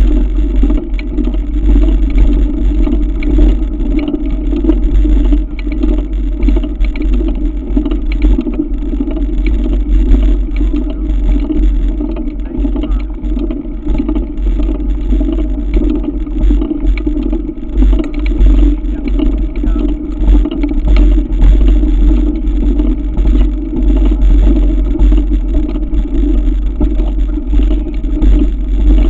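Mountain bike rolling up a gravel track, heard through a camera mounted on the bike: a loud, steady rumble with fine crunching and rattling from the tyres on loose stones.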